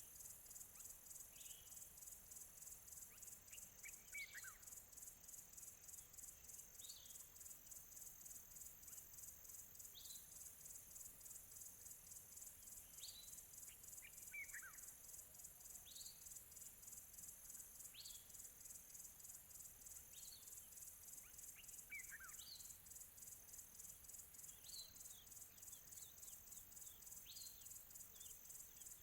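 Crickets chirping steadily in a fast, high-pitched pulsing trill. Distant birds call over it with short falling whistles every few seconds and a few longer falling notes. Faint overall.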